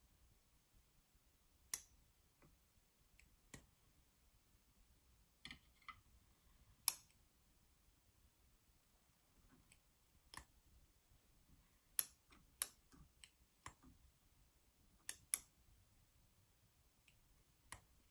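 A steel needle holder clicking as it is worked during instrument tying of a suture knot: about a dozen sharp clicks at irregular intervals.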